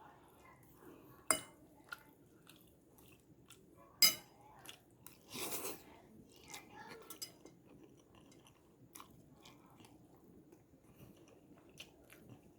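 Close-up chewing of fried noodles, with faint wet mouth clicks throughout. Two sharp clicks stand out, about a second in and about four seconds in, and there is a short noisy burst a little after five seconds.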